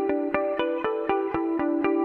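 Intro music: a bright melody of short, crisp plucked notes, about four a second.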